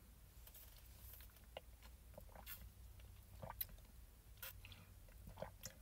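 Near silence with a few faint, scattered clicks and small mouth sounds from sipping a slushy through a straw.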